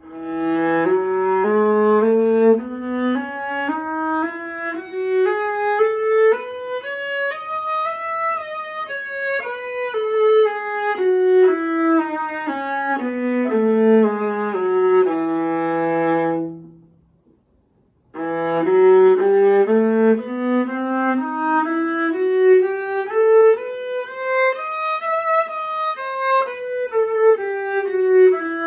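Viola playing a two-octave E major scale up and down with slurred bowing, ending on a held low E. After a short pause, a two-octave E harmonic minor scale follows with detaché bowing, separate bow strokes on each note.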